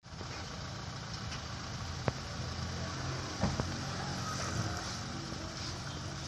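Steady low hum of an idling vehicle engine, with a few short clicks about two seconds and three and a half seconds in.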